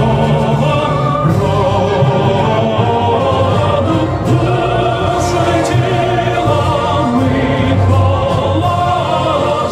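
Music: a song with choir-like singing over a steady accompaniment, played loud and continuous.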